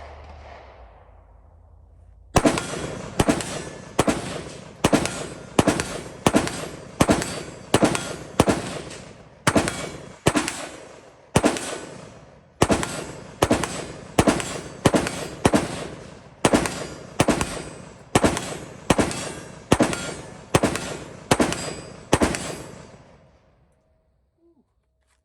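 ATI AR-15 pistol with a 7.5-inch barrel fired semi-automatically as fast as the trigger can be pulled: a long string of sharp rifle shots, about two a second with a few brief pauses, each ringing out. The whole magazine is emptied in a mag dump, heating the barrel until it smokes.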